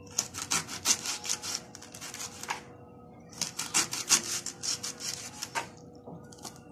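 Kitchen knife shredding a raw cabbage finely on a cutting board: quick, crisp slicing strokes, several a second, in two runs of about two seconds with a short pause between.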